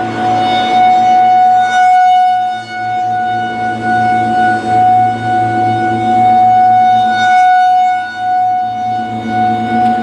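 Federal Signal 2001-SRN outdoor warning siren sounding a steady tone, swelling and fading as its horn turns on a rotator set to 8 RPM.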